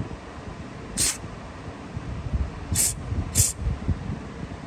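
Aerosol carburetor cleaner sprayed through a red extension straw into the main-jet bowl bolt of a Briggs & Stratton lawnmower carburetor, in three short hissing bursts: one about a second in and two close together near the end. It flushes the bolt's small fuel holes, where these carburetors usually clog.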